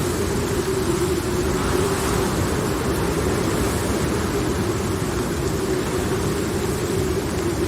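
Steady rain ambience, a constant dense hiss, with a low droning tone that wavers slightly in pitch underneath. No thunder crack in this stretch.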